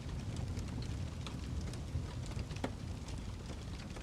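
Fireplace crackling: a steady low rumble from the fire with scattered sharp crackles and pops, one louder pop about two and a half seconds in.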